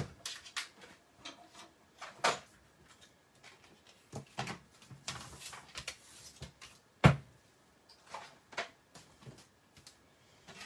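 Clear acrylic cutting plates from a die-cutting machine being lifted apart and set down on a work mat: a scatter of light plastic clicks and knocks, the loudest about two seconds in and again about seven seconds in.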